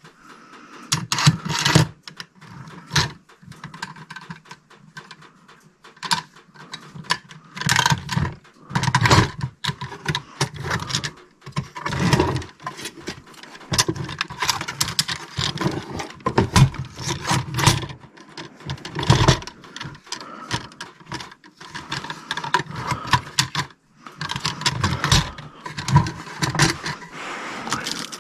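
Irregular clatter and clinking of metal tools and parts being handled and rummaged through, a quick run of knocks and clicks with no steady running sound.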